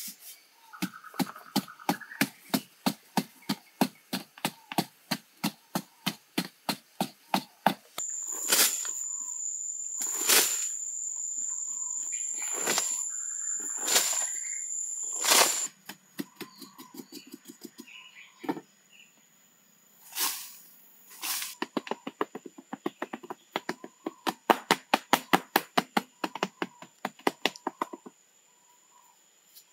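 Hoe blade chopping into packed earth in quick rhythmic strokes, about three or four a second. For several seconds in the middle, heavier single strikes come about every second and a half over a steady high insect drone, which fades but continues afterwards.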